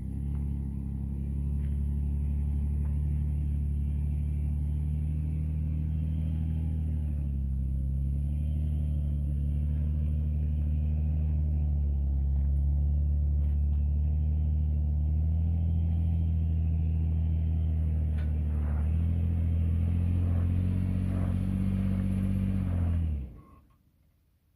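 Off-road vehicle's engine running at low, fairly steady revs, its pitch dipping and rising slightly now and then, with a few short knocks late on. The sound cuts off abruptly about a second before the end.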